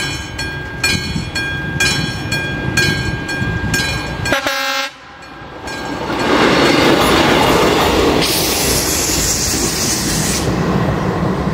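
Electronic level-crossing warning bell ringing, about two strokes a second, until a diesel railcar gives a short horn blast about four seconds in. The Regionova diesel railcar then passes over the crossing, its engine and wheels on the rails loud to the end.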